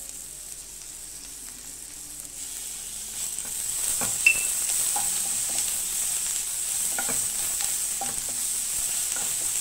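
Small onions and ginger-garlic paste sizzling in hot oil in a non-stick kadai, stirred with a wooden spatula that knocks and scrapes against the pan. The sizzle grows louder about three seconds in, with one sharp clink about a second later.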